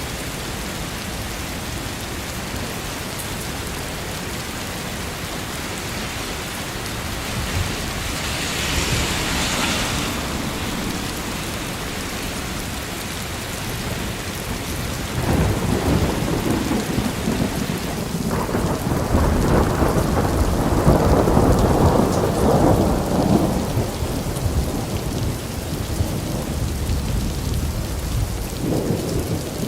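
Steady rain with thunder: a long low rumble of thunder rolls in about halfway through, swells and fades, and a shorter rumble follows near the end.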